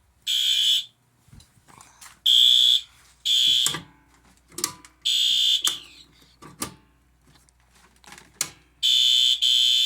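Fire alarm horn on its low-volume setting sounding in short blasts of about half a second, each a harsh high-pitched tone, at uneven intervals. Faint clicks and knocks fall in the gaps between the blasts.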